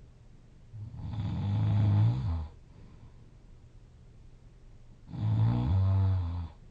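A sleeping person snoring loudly: two snores about four seconds apart, each a rough, low buzz lasting about a second and a half.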